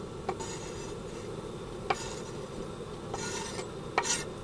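Kitchen knife scraping sliced green onions off a wooden cutting board into a pot: several short rasping scrapes and a few sharp taps, over a steady low hiss.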